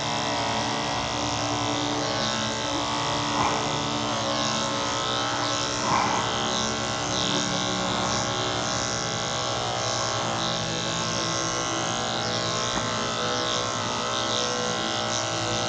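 Cordless electric dog clippers running with a steady hum as they are pushed through a cocker spaniel's coat along its back.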